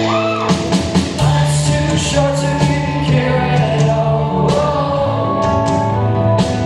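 Rock band playing live, with a singing voice over held guitar chords and steady drum and cymbal hits.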